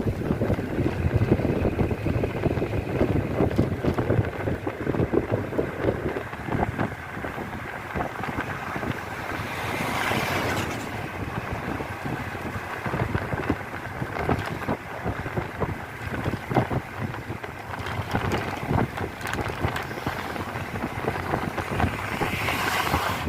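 A vehicle in motion, running steadily, with wind buffeting the microphone and frequent small knocks and rattles.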